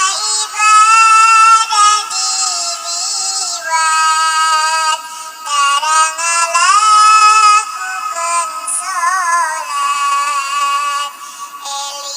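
A high-pitched, artificially altered singing voice chanting a Sundanese nadzom in long held phrases, with a wavering vibrato about nine seconds in.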